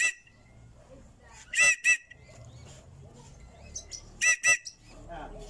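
Cockatiel calling: two quick pairs of short, shrill calls, the second pair about two and a half seconds after the first.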